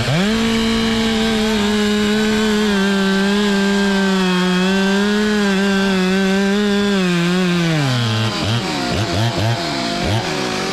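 Two-stroke chainsaw revved to full throttle and held there while cutting through a tree trunk, its pitch sagging slightly under load. About seven and a half seconds in it drops back toward idle, then is blipped in several quick short revs.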